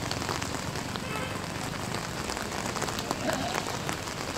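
Steady rain falling on floodwater: an even hiss made of countless small drop ticks, with no let-up.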